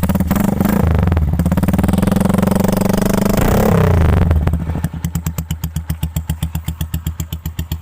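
Honda TMX 125 single-cylinder four-stroke motorcycle engine heard through its exhaust pipe, revved hard for about four seconds with the pitch rising and dipping. It then drops back to an even, pulsing idle.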